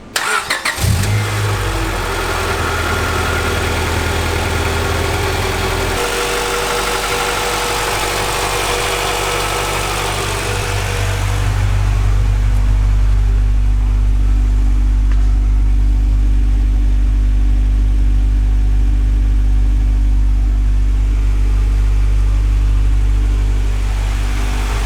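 Honda VTEC car engine with a Kakimoto racing exhaust starting with a brief crank about a second in, then running at a fast idle. The idle changes about six seconds in and again about eleven seconds in, settling into a steady, lower-sounding idle that is running fine.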